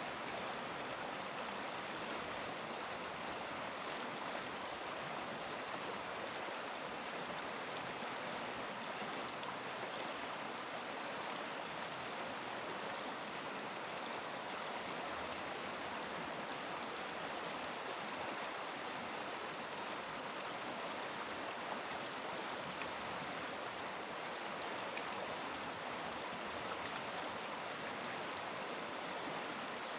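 A river rushing over stones: a steady, even flow of water noise with no change.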